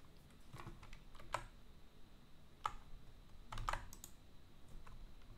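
A handful of faint, irregular clicks of computer keys being pressed.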